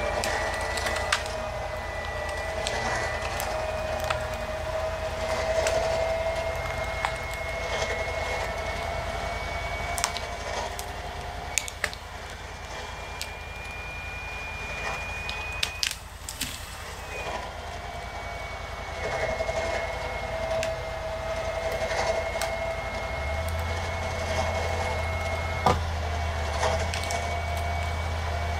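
Electric winch motor whining steadily as it drags a fallen tree across the ground, with branches cracking and snapping as the log moves. The winch stops for a few seconds about halfway through, then pulls again.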